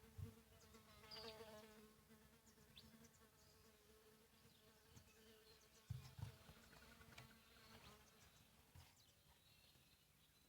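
A faint, steady high-pitched whine from a TriStar TS-MPPT-60 solar charge controller squealing, with birds chirping faintly and two low thumps, one just after the start and one about six seconds in.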